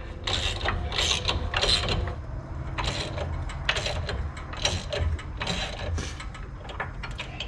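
Hand ratchet wrench being worked on a suspension bolt: short bursts of clicking, about two strokes a second.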